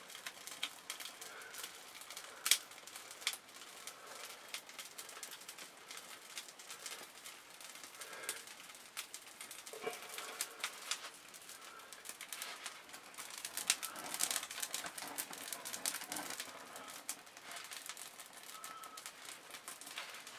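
A handful of birch bark burning, crackling steadily with a few louder sharp pops.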